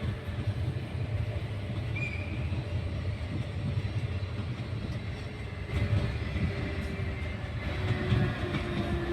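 Rodalies de Catalunya electric commuter train running on the line, a steady low rumble with louder knocks about six and eight seconds in.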